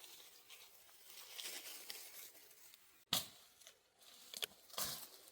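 Quiet rustling and crinkling handling noise, with a sharp click about three seconds in and another shortly before the end.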